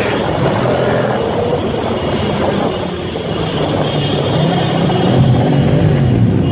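Motorcycle engines running in a group ride, heard from aboard a Ural UH 750, the engine pitch rising and falling with the throttle over road and wind noise.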